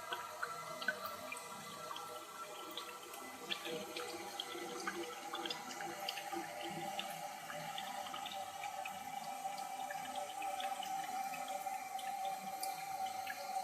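Water running through a new toilet fill valve into the cistern as it fills: a steady hiss carrying a faint tone that grows louder in the second half, with small splashes and drips.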